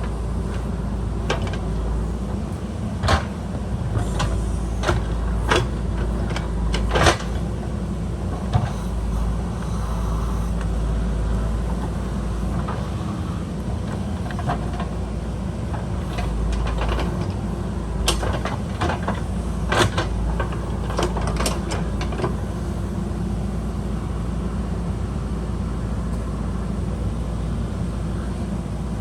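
JCB backhoe loader's diesel engine running steadily, with bursts of sharp knocks and clanks, a cluster in the first third and another around two-thirds through.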